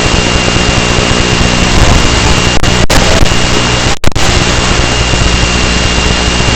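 Loud wind rush over the microphone with a steady high-pitched electric motor whine from a small 2S electric RC aircraft. The sound briefly cuts out about three seconds in and again about four seconds in.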